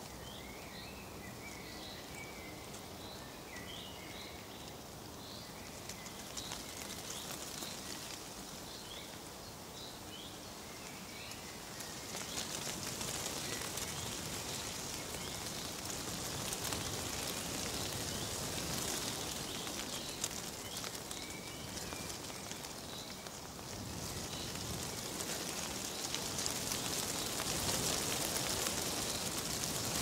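Small birds chirping over a steady rustle of wind-blown leaves. The rustle grows louder about a third of the way in and again near the end, while the chirping thins out.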